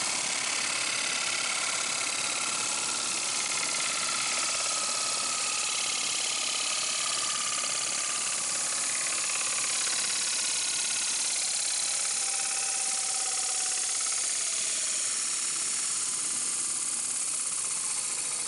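Lathe running steadily while its cutting tool finishes the round wooden back plate of a kite reel, a continuous machine noise with a faint whine that drifts slightly in pitch.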